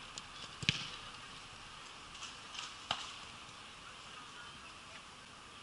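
A football being kicked on an artificial-turf pitch: two sharp thuds about two seconds apart, the first the louder, over steady outdoor background noise.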